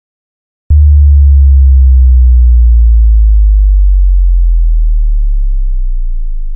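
Cinematic bass drop sound effect: a sudden, very loud, deep sub-bass boom hits about a second in, then holds and slowly fades, sinking a little in pitch.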